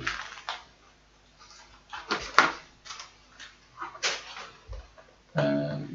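Plastic packaging being handled: a poly mailer bag and a clear plastic blister pack rustling and crackling in several short bursts, the loudest about two seconds in.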